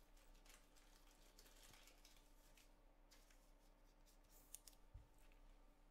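Near silence: room tone with a faint steady hum, a few faint ticks about four and a half seconds in, and a soft low thump just after.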